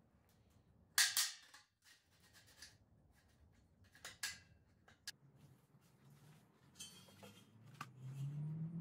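Small steel pieces being handled and set down on a steel welding table: a sharp metallic clank about a second in, then lighter clinks and taps. A low hum rises in pitch near the end.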